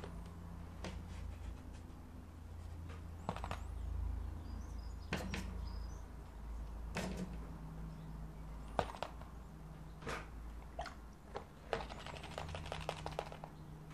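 Quiet steady low hum with scattered light clicks and taps, and a quick run of ticks near the end.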